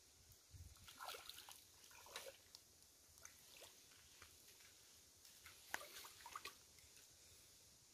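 Faint small splashes and drips of a hand reaching into shallow stream water and picking objects out, with a few light clicks now and then.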